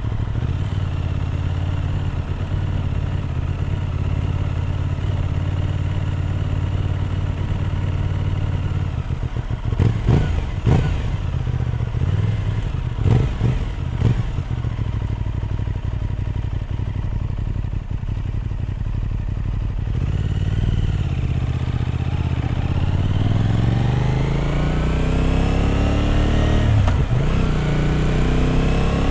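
Aprilia RS 660 Extrema's parallel-twin engine through an SC Project exhaust, running steadily at low revs, with a few short sudden bursts about a third of the way in. Near the end it pulls up through the revs in rising sweeps, broken once by a gear change.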